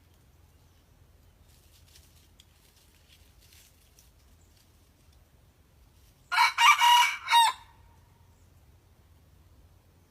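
Young junglefowl decoy rooster crowing once, a short crow broken into four parts lasting just over a second, a little past halfway through; it is still learning to crow.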